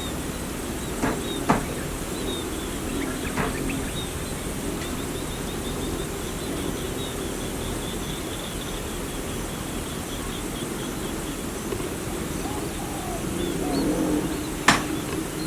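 Farmyard birds calling: low wavering calls and a long run of rapid high chirps through the middle, over steady background noise, with a few short sharp clicks near the start.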